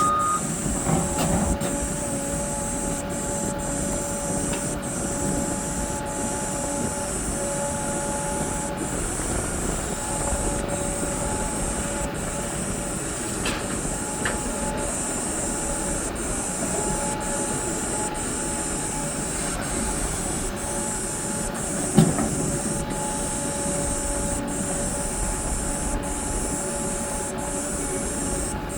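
Hidromek 390LC crawler excavator's diesel engine and hydraulics running under load, with a steady whine and hiss. One loud clank about 22 seconds in.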